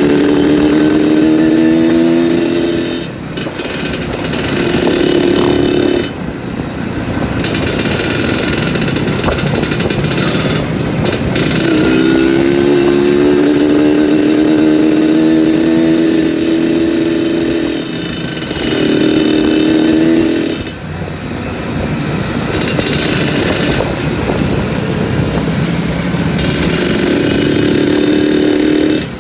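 Two-stroke trail motorcycle being ridden, its engine revving up and easing off again and again as the throttle is worked, with brief drops in engine sound between pulls.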